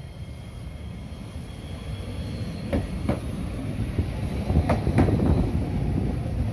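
Chikuho Electric Railway 5000-series articulated low-floor tram passing close by, its rumble on the rails growing louder as it nears. Two pairs of sharp clacks, each pair about a third of a second apart, come as its wheels cross a rail joint.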